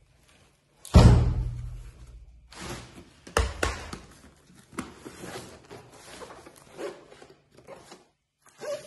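A heavy thump about a second in that rings on low, and a second sharp knock a couple of seconds later. Then softer cardboard rustling and scraping as a box cutter slices the packing tape on a parcel.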